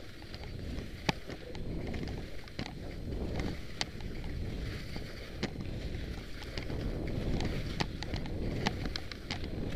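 Skis sliding over snow on a traverse, a steady low rumble with wind on the microphone, broken by irregular sharp clicks and ticks.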